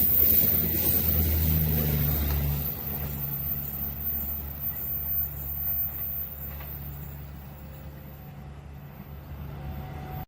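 Low, steady drone of a heavy vehicle engine, loudest in the first few seconds and then fading away as it moves off.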